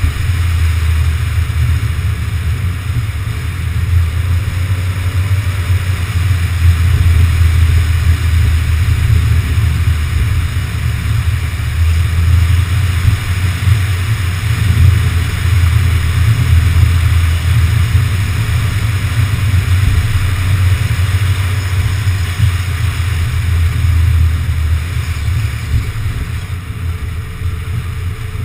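Car driving at a steady speed, heard through a camera mounted on the outside of the car: a heavy low rumble of wind and road noise with a steady hiss above it.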